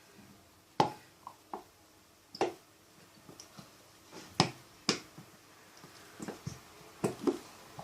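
Scattered sharp knocks and taps of glue bottles and bowls being handled while glue is added for slime, about six, the loudest about a second in and near the middle.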